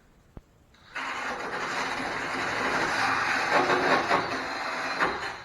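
A power tool spinning a flap wheel against the truck cab's sheet metal, sanding off paint; it starts about a second in and cuts off just before the end. The wheel is a shade too wide for the tight spot it is being worked into.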